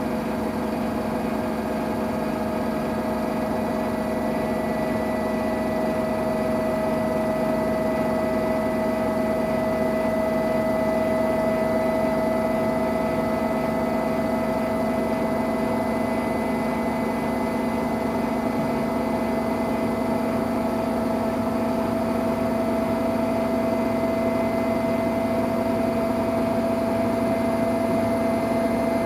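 Samsung Eco Bubble washing machine running a cotton wash, its motor giving a steady whine that climbs slowly in pitch.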